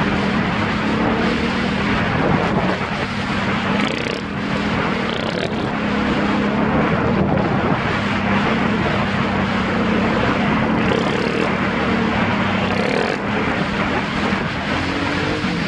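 700 cc ATV engine running at a fairly steady pitch, with a rushing noise over it; the pitch rises briefly near the end.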